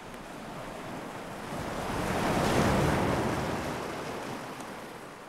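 Rushing sea surf and wind. The sound swells to a peak about halfway through, then fades away.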